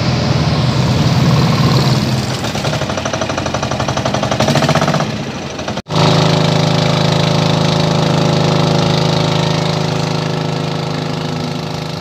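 Small wooden motorboat's engine running loud and steady, with a fast pulsing beat in the first half; the sound breaks off for an instant about halfway, then goes on as a steady drone.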